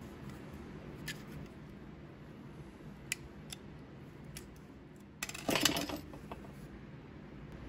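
Small metal parts of an old carpenter's square and a thin pick being handled on a workbench: a few light metallic clicks, then a brief clinking clatter about five and a half seconds in.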